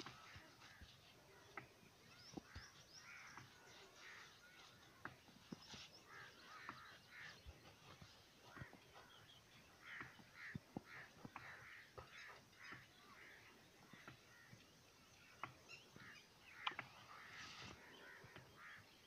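Faint birds calling over and over in short, chirping notes, with scattered sharp clicks.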